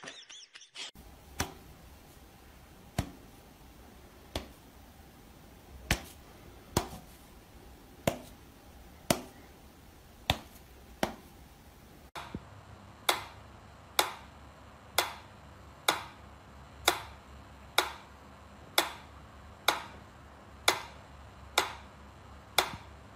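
Mechanical pendulum metronome ticking steadily, about one loud tick a second, through the second half. Before that come single sharp clicks at irregular intervals of a second or so.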